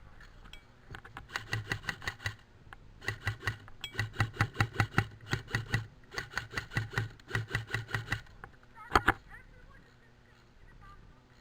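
Airsoft electric rifle firing in three long strings of rapid shots, each a quick repeating crack, followed by a single sharper crack about nine seconds in.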